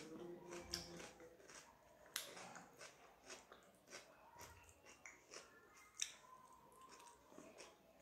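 Quiet eating sounds: chewing and wet mouth smacks, with many short clicks, as a meal of rice and curry is eaten by hand.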